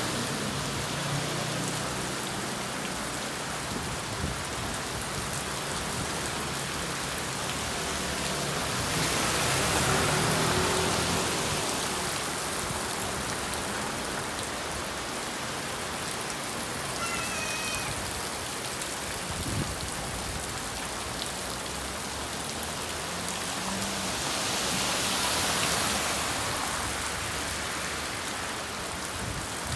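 Heavy tropical rain pouring onto a flooded street, a steady dense hiss that swells louder twice. A motor scooter's engine passes through the floodwater near the start.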